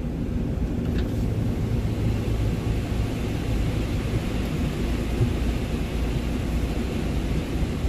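Steady low rumble of the Freightliner Cascadia's diesel engine, heard from inside the cab while the truck creeps slowly, with a steady hiss above it.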